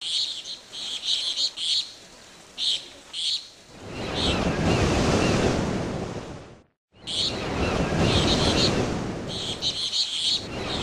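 Birds chirping in short repeated bursts over a steady outdoor rushing noise that swells about four seconds in, with a brief dropout just before the middle.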